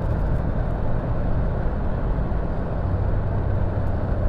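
Steady low rumble with a low hum underneath, like a running motor vehicle, unchanging throughout.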